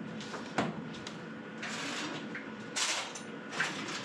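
Kitchen handling noises from fetching a tub of sour cream from a refrigerator: a few short knocks and clicks of the fridge door and plastic container, with a brief rustle about two seconds in.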